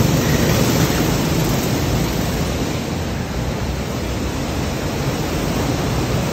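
Go-karts running on an indoor track, heard as a steady, even rushing noise with no distinct engine note.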